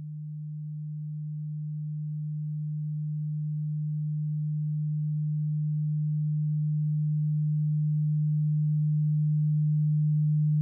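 A single steady low electronic tone, a pure sine-like hum with no other sound, fading in and growing slowly louder.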